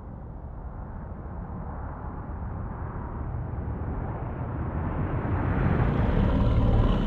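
A low rumbling noise that swells steadily louder and brighter, loudest near the end, where a few higher tones come in.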